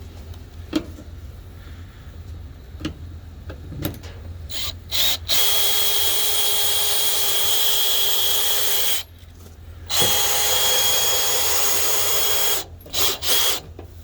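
Electric drill boring through the wall: a couple of short trigger blips, then two steady whining runs of several seconds each with a brief stop between, and two more short blips near the end. A few light knocks come before the drilling starts.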